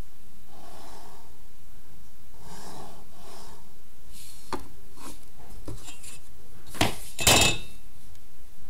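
Pencil scratching in short strokes on drawing paper along a plastic set square. A few light clicks follow, then two louder knocks and a scrape about seven seconds in as the set square is moved on the drawing board.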